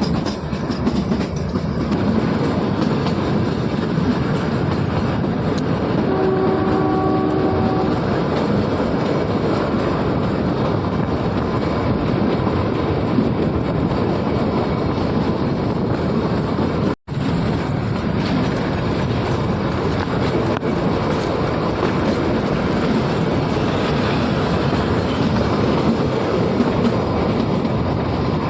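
Kalka–Shimla narrow-gauge toy train running, its wheels clattering steadily over the rails. A short steady horn note sounds about six seconds in, and the sound drops out for an instant a little past the middle.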